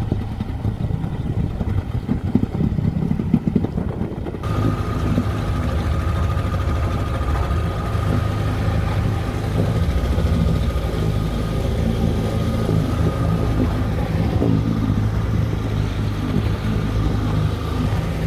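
Motorboat engine running with wind and water noise. About four seconds in, the sound changes suddenly to a steadier engine drone with a thin high whine over it.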